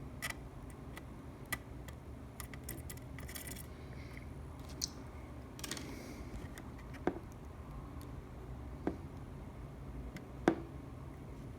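Small clicks and taps of hand tools at a soldering bench, scattered and faint, with three sharper taps in the second half, over a low steady hum.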